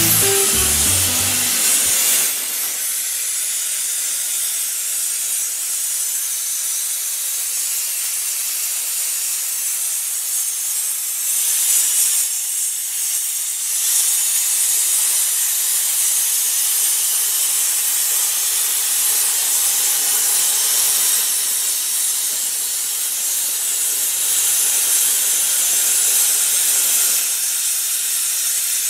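Music fades out in the first two seconds. Then a 300 A plasma cutter's arc hisses steadily as it cuts 20 mm carbon steel plate.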